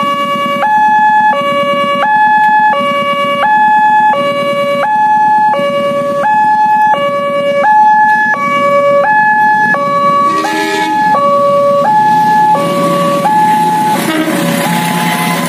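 Railway level-crossing alarm sounding its high two-tone warning, switching evenly between a higher and a lower tone about every 0.7 seconds, which signals that a train is approaching the closed crossing. Near the end the running noise of the arriving diesel-hauled train rises underneath.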